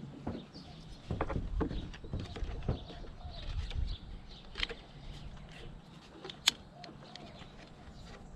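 Handling of a ratchet strap on a roof-rack crossbar: scattered light knocks and rustles as the rolled-up strap end is tucked under the ratchet, with one sharp click about six and a half seconds in.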